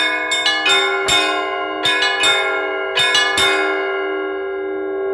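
Church bells in Russian-style ringing (zvon): quick strikes on several bells of different pitch, thinning out, the last strokes about three and a half seconds in, then the bells hum on and slowly die away.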